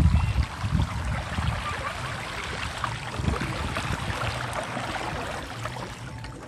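A bicycle's front wheel rolling through shallow floodwater, with steady swishing and splashing of water around the wheel and a few soft knocks.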